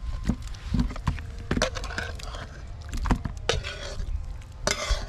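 Thick chicken curry (chicken kosha) being poured and scooped out of a cooking pot: irregular scrapes and knocks of a spoon against the pot, with wet slops of the curry.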